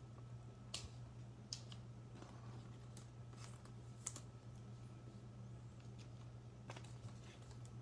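Trading cards being handled and set down on a table: a few faint, scattered clicks and taps over a low steady hum.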